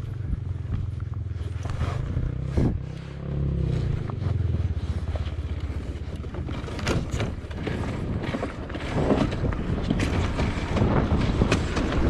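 Enduro motorcycle engine running steadily at low revs, with scattered sharp knocks and scrapes over it.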